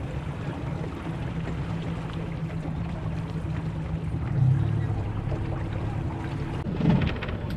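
Small boat's engine running slowly at low throttle, a steady low hum that swells briefly about four seconds in. A short louder noise comes near the end.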